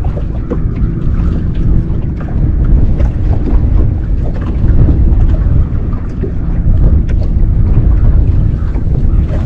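Wind buffeting the microphone aboard a boat on the open river, a loud low rumble that rises and falls, with small knocks and ticks over it.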